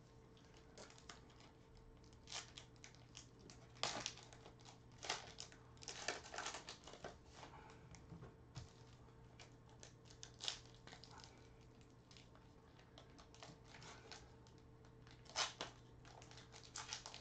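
Panini Prizm foil packs and trading cards being handled and opened: faint scattered crinkles, flicks and clicks, with a few louder rustles, over a steady low hum.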